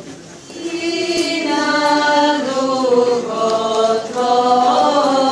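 Eastern Orthodox liturgical chant: voices singing long held notes that step slowly up and down in pitch. It starts softly and swells within the first second, with a brief pause for breath about four seconds in.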